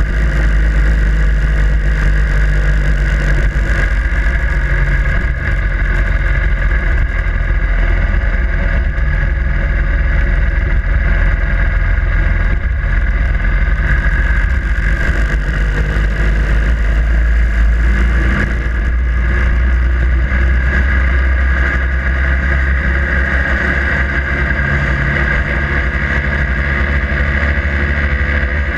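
Harley-Davidson Sportster Iron 883's air-cooled V-twin engine running steadily under way, heard from the motorcycle itself.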